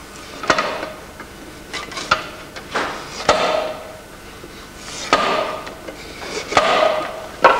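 A long hinged clog-maker's stock knife, hooked to a wooden chopping block, levered down through a soft-wood clog blank to shape its outside: about six cuts at irregular intervals, each a sharp crack followed by a short slicing rasp.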